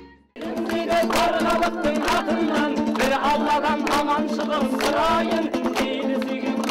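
Music with a singing voice over a steady held drone note, starting about half a second in.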